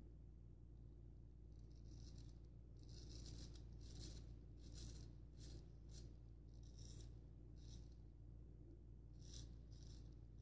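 Gold Dollar 66 straight razor cutting through beard stubble with the grain: a series of short, faint, high-pitched rasps, one per stroke, some coming in quick runs.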